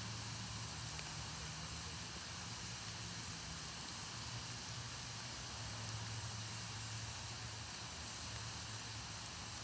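Wood fire burning with a steady hiss and only a couple of faint crackles, over a low steady hum.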